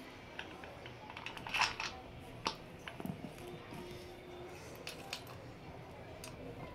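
Scattered light clicks and rustles of hands handling the parts and wiring of a ceiling fan being assembled, with a brief rustle about a second and a half in and a sharper click soon after.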